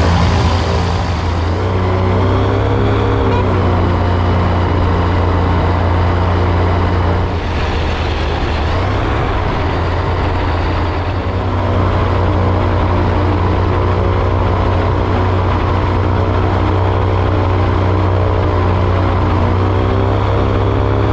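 Rotax 912 four-cylinder engine of a motorised hang-glider trike running steadily at taxi power, the propeller turning behind the pilot, with small rises and falls in engine pitch.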